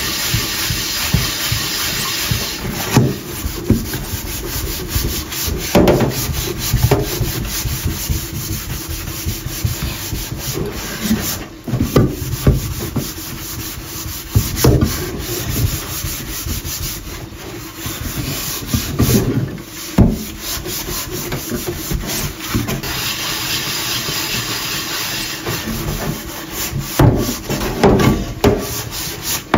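Gloved hand scrubbing the burnt-on crust off the bottom of a pot in a stainless steel sink, a steady rasping scrub broken now and then by short knocks.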